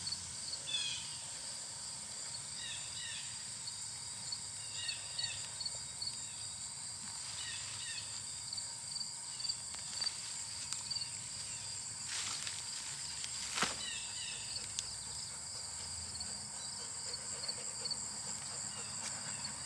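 Steady, high-pitched chorus of insects, such as crickets, trilling, with short chirps every couple of seconds in the first half. A single sharp knock sounds near the three-quarter mark.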